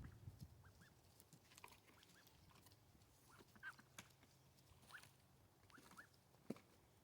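Near silence, with a few faint, short bird chirps and a couple of soft clicks.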